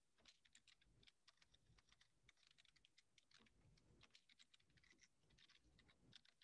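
Faint computer keyboard typing: a quick, irregular run of keystrokes.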